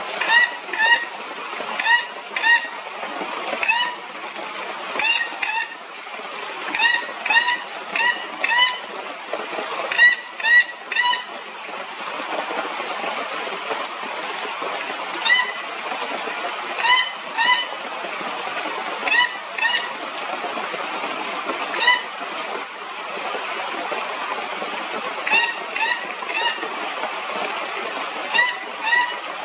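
Plate-billed mountain-toucan calling: short nasal notes, often in pairs or threes, repeated every second or two with a few longer gaps, over a steady background rush.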